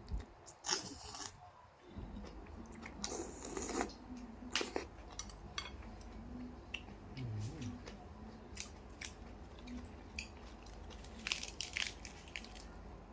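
A person slurping and chewing noodle soup: several short slurps with small mouth and eating noises between them.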